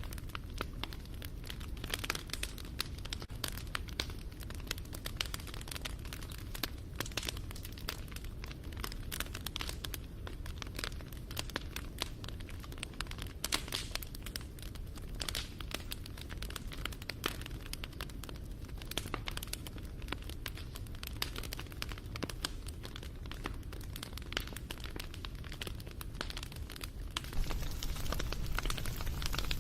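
Wood fire crackling and popping in a dense, irregular patter of snaps over a low steady rumble of the flames, getting a little louder near the end.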